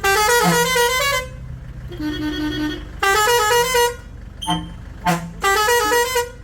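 Six-pipe musical air horn, fed by a 12 V compressor and air tank, playing quick stepping note sequences in a few short phrases, with brief single toots between them.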